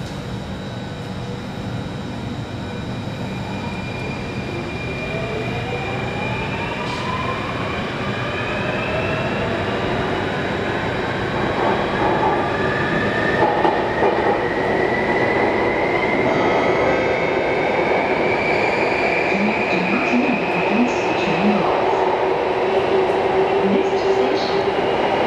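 Alstom Metropolis C830 metro train heard from inside the carriage as it pulls away and speeds up. The traction motors whine, rising in pitch from about four seconds in, while the running noise of wheels on rail grows steadily louder.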